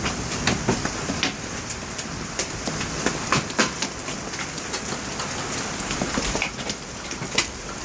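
Large hailstones, nearly golf-ball sized, pelting down in a storm: a steady hiss of rain with many sharp, irregular impacts of stones striking.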